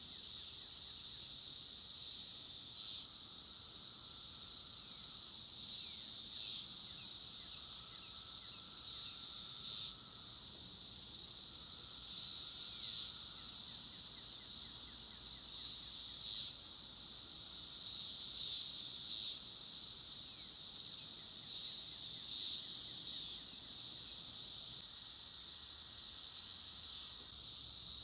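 Chorus of 17-year periodical cicadas: a steady high buzzing that swells and fades in waves about every three seconds, with a fainter, lower drone beneath it.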